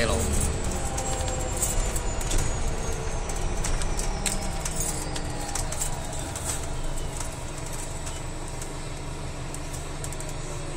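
Cabin of an Alexander Dennis Enviro 350H hybrid bus under way: a steady low drive rumble with a thin high whine that slowly falls in pitch, and scattered clicks and rattles. The sound eases slightly about halfway through.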